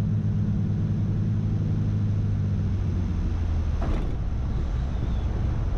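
Cessna 310's twin piston engines droning steadily at low power through the landing flare, with a short sharp thump about four seconds in as the wheels touch down hard.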